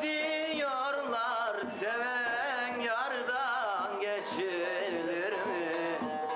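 A man singing a Turkish love song in a wavering, ornamented melody, accompanied by a bağlama (long-necked Turkish saz lute).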